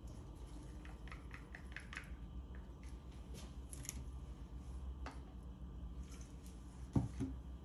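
Light clicks and taps from handling paint bottles, over a steady low hum, with one louder knock about seven seconds in.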